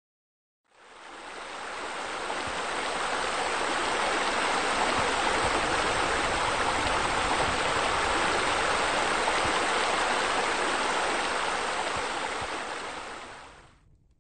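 Steady rushing of water spilling over a pool's boulder waterfall, fading in over the first couple of seconds and fading out near the end.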